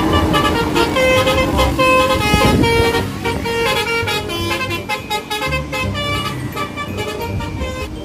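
Multi-tone 'telolet' bus air horn playing a fast melody of short honked notes, over a vehicle's low rumble.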